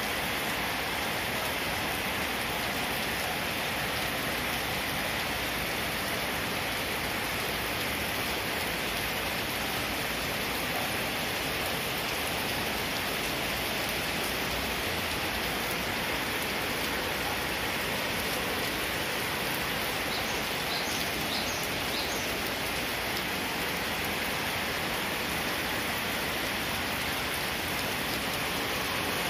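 Steady rain falling on wet brick paving, puddles and water, an even, unbroken hiss.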